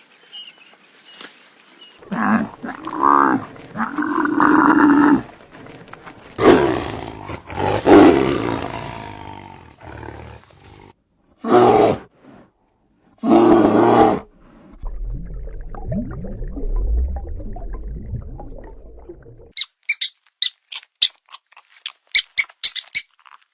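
A run of separate animal calls: several loud pitched calls and roars, then a low rumble lasting a few seconds, then a quick series of short high squeaks near the end.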